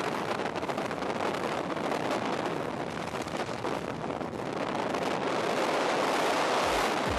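Strong wind rushing over a skydiving camera's microphone in freefall, a steady roar of air that grows a little stronger over the last couple of seconds.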